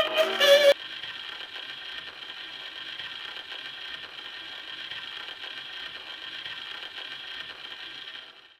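A sung record cuts off under a second in, leaving the steady surface hiss and faint crackle of a gramophone needle riding in the spinning record's groove, which stops abruptly near the end.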